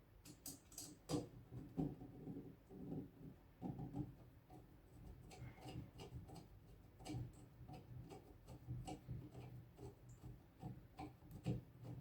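Faint, irregular small clicks and taps, with a few sharper ones in the first second or so. They come from a screwdriver and screws being handled and worked while a fire alarm horn is fastened to its back box.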